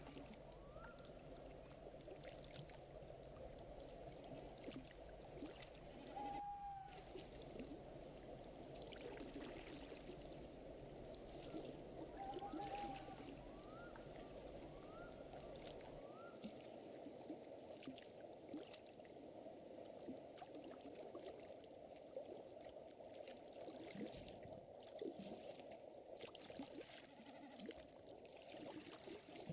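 Faint lakeside nature ambience: water lapping and trickling steadily with soft crackling, and a few short animal calls, twice as a brief high note and a cluster of small rising chirps.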